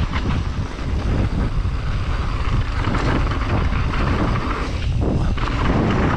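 Wind rushing over the microphone of a camera on a mountain bike rider descending fast, with the tyres rumbling and the bike knocking and rattling over the dirt trail.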